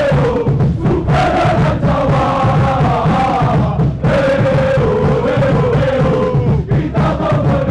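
A large crowd of football supporters singing a chant in unison, in long sung phrases that break briefly about every three seconds.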